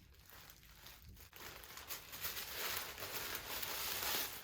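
Plastic packaging wrap crinkling as it is handled, louder in the second half.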